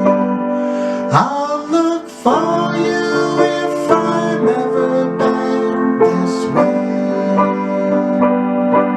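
Piano chords struck in a steady rhythm under held melody notes, with a note sliding up about a second in: an instrumental passage of a piano-and-harmonica folk song.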